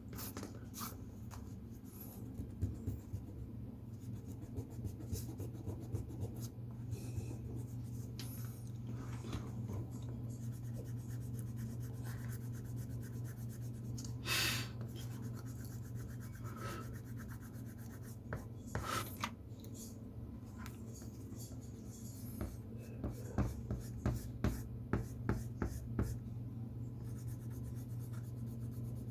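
Drawing tool scratching on paper as an airliner is sketched: irregular short strokes, a couple of longer ones, and a quick run of short strokes later on, over a steady low hum.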